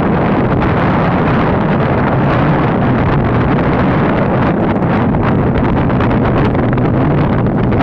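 Loud, steady wind noise on the microphone over the low hum of a moving vehicle.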